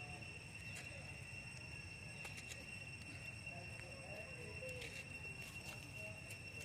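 Steady high-pitched insect drone, with a few sharp crackles of dry leaves underfoot, about four in all, as a baby macaque walks across leaf litter.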